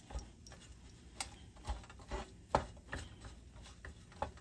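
Wooden spatula knocking and scraping against a nonstick frying pan while cooked rice is stirred and broken up for fried rice: irregular light taps, about two a second.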